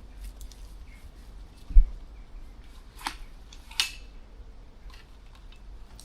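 Manual pole saw at work on high tree branches: a heavy low thump about two seconds in, then two sharp clicks a little under a second apart, over a steady low rumble.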